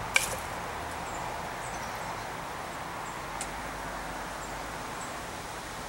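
Quiet outdoor ambience: a steady low background hiss with a few faint, short, high bird chirps, and a light tap just after the start.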